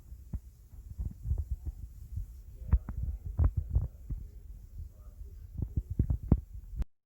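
Irregular low thumps and bumps with a few sharper knocks, cutting off suddenly near the end.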